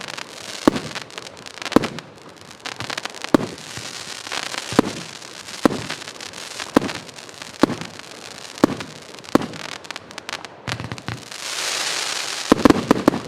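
Pyroworx Dante's Inferno firework going off: a sharp bang about once a second, with crackling between the shots. Near the end a loud hissing crackle swells, and a rapid cluster of bangs follows.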